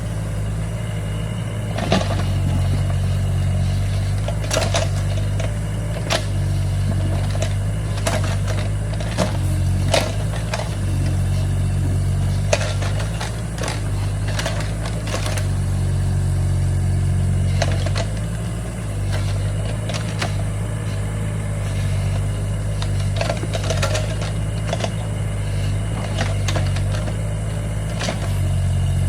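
Hydraulic excavator's diesel engine running under changing load as it digs, its low note shifting up and down, with frequent short knocks.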